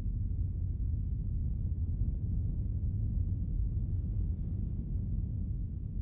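Deep, steady rumbling drone from the sound design, with no tune or beat.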